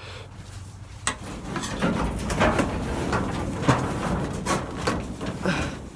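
Irregular knocks, thumps and rustling as a heavy garden hose is carried into a shed and set down, with handling noise on the phone's microphone. A single click comes about a second in; the clatter starts about two seconds in and dies away near the end.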